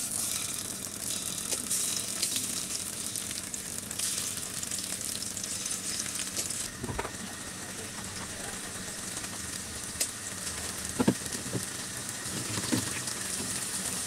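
Egg-coated chicken strips sizzling in hot oil in a karai as they are laid in one by one, with a few light knocks.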